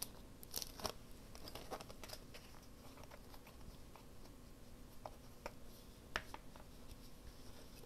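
Faint handling of paper craft pieces being glued down: a few scattered light taps and rustles over a low room hum.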